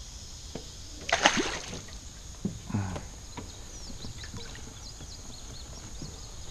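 A sharp splash in pond water beside an aluminium jon boat about a second in, then a softer slosh or knock about a second and a half later. Faint high chirps sound in the background later on.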